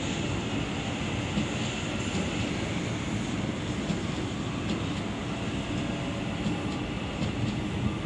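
A train running past on the track, with a steady rumble of wheels on rail and a few faint clicks.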